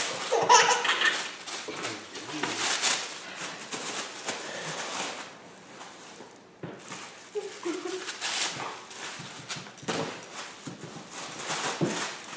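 A large dog making brief vocal sounds as it plays, with paper rustling as it tugs at a red paper.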